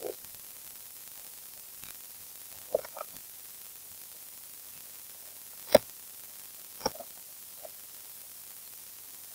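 Steady hiss of an open microphone, broken by a handful of short, sharp clicks. The loudest click comes about four seconds in, and a smaller one follows about a second later.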